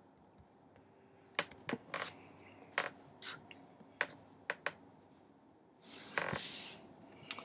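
Faint, irregular clicks of a computer keyboard and mouse, about a dozen scattered taps, with a short soft rustle about six seconds in.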